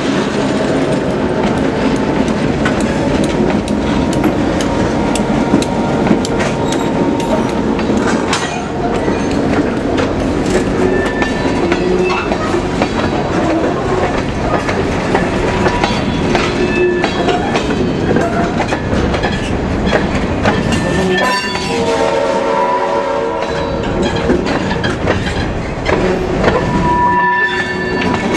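Freight train of empty trash cars rolling by with a steady rumble, its wheels clacking over rail joints. About twenty seconds in, the locomotive's horn sounds a long blast and then another just before the end.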